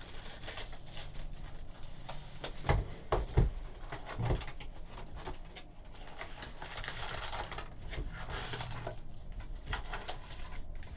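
Plastic wrapper and foil trading-card packs crinkling and rustling as a sealed box of 2014 Topps Archives baseball is opened and its packs are pulled out and laid on a table. A few dull knocks sound between about two and a half and four and a half seconds in.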